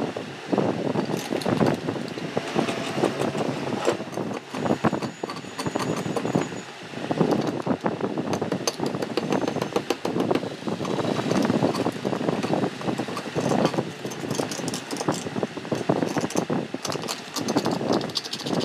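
Hand cleaning of rusty water-pump parts: rubbing, scraping and frequent small clicks of a tool on metal, over a steady, uneven rushing noise.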